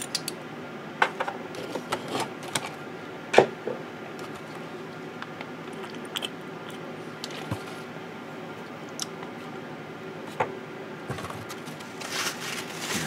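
Light clicks and taps of a plastic thinner bottle and a metal airbrush being handled, the sharpest tap about three and a half seconds in, over a faint steady hum.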